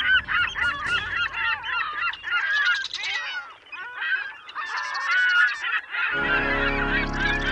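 A flock of birds calling over one another in a dense chorus of short calls that rise and fall in pitch. About six seconds in, soft ambient music with low held notes comes in beneath the calls.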